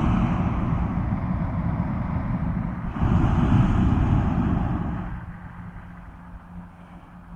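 Hot-air airship propane burner firing in long blasts: a loud rushing roar, strongest from about three to five seconds in, which then stops and leaves the steady low hum of the airship's propeller engine.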